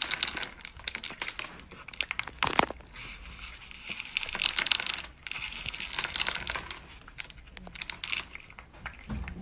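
Irregular crinkling and rustling with many small clicks, like something being handled or moved about on a crinkly material.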